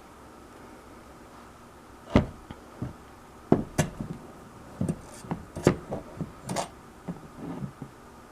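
About a dozen irregular sharp knocks and clicks of objects being handled and set down on a hard surface, beginning about two seconds in.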